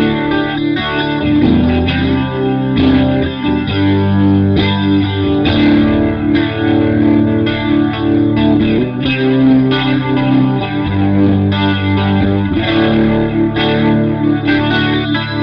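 Electric guitar played through an Electro-Harmonix Lester K rotary-speaker (Leslie emulation) pedal, its drive adding distortion: strummed chords and held notes at a steady pace, coloured by the pedal's rotating-speaker effect.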